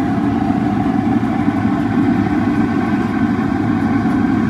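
Large wok of hot oil deep-frying food over a stove burner: a steady, dense rumble with a sizzle.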